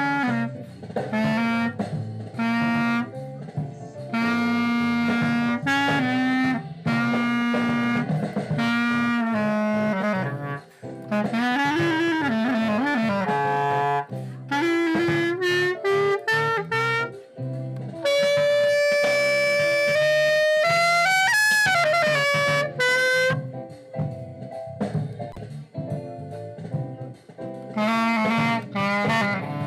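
Glory GLY-PBK Bb clarinet playing a melody of short, changing notes, with one long held note about two-thirds of the way through and a quick run up to a high note and back just after it.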